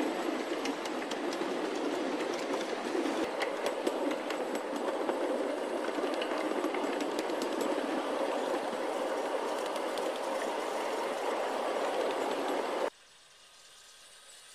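Steel wheels of a ride-on scale GE23 locomotive and its riding car rolling over small-gauge track, a steady rumble with many small clicks and clatters. About thirteen seconds in it cuts off abruptly, leaving only a faint sound.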